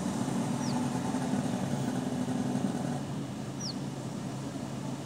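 Car engine idling steadily, heard from inside the cabin as a low, even hum. Twice there is a short, high, falling chirp.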